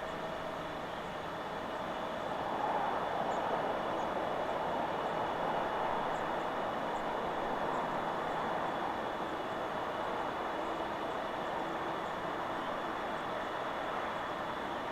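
Wind rushing through forest trees, a steady whoosh that swells about two seconds in and holds.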